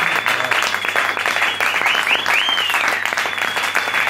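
A roomful of people applauding with steady clapping, with a few short high calls rising and falling in pitch near the middle.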